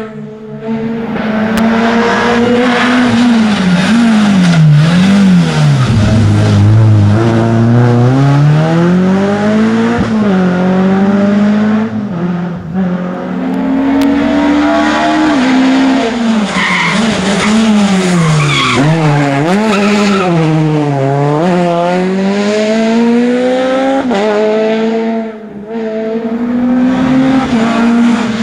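Rally car engines driven hard up a twisty tarmac stage, the engine note rising through the revs and dropping over and over at gear changes and lifts.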